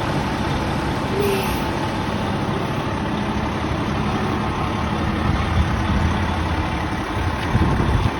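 Fire engine's diesel engine idling steadily, with a brief louder surge near the end.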